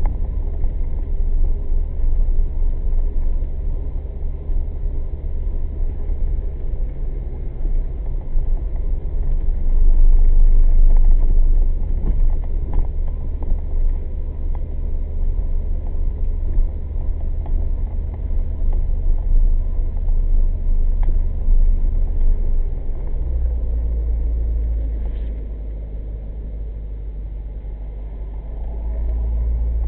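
1998 C5 Corvette's 5.7-litre LS1 V8 and road noise while driving, heard from inside the cabin: a steady low rumble that swells for a couple of seconds about ten seconds in and settles lower and quieter from about twenty-three seconds in.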